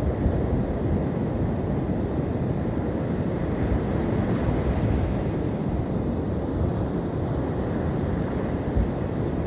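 Sea surf washing onto the beach, mixed with wind buffeting the microphone: a steady rushing noise with a low rumble.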